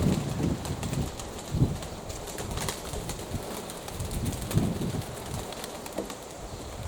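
Domestic pigeons cooing, with gusts of strong wind on the microphone.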